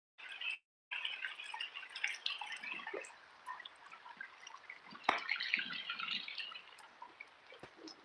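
Heavy rain falling and dripping, a crackling hiss that cuts out twice in the first second. A sharp knock about five seconds in, after which the rain sounds louder for a while before easing near the end.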